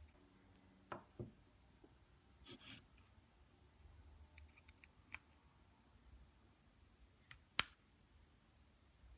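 A few faint, scattered clicks and light knocks with a brief rustle, the loudest being one sharp click near the end.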